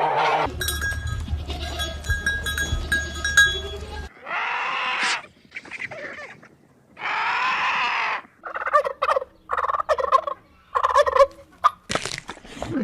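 Farmyard fowl calling: two long calls, then a quick run of short calls, with a low rumble under the first few seconds.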